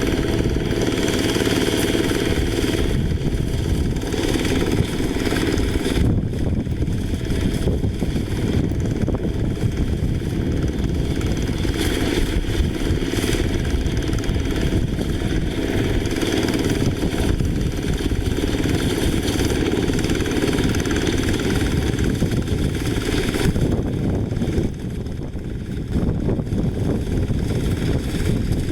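Quick H-140R light diesel rice harvester running while working, a steady loud engine drone that dips briefly near the end.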